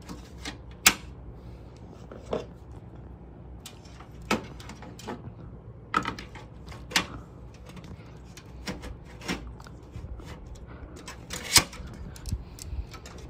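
Hard-drive tray and two hard drives being handled and slid into a PC case's metal drive cage: a string of irregular plastic and metal clicks and knocks, the sharpest about a second in and near the end.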